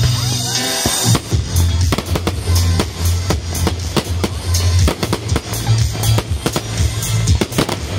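Fireworks display: many sharp bangs and crackles from bursting shells and spark fountains, over loud music with a heavy bass line.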